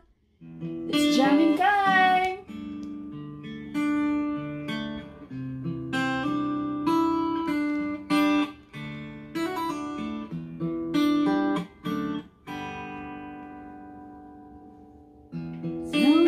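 Background music played on acoustic guitar: plucked notes and chords, one left to ring and fade out before the playing starts again near the end.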